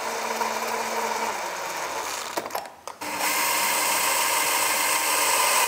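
DeWalt cordless drill-driver running in two spells while driving screws into a clamped trim joint: a steady whine for about two and a half seconds, a short pause, then a louder run from about three seconds in.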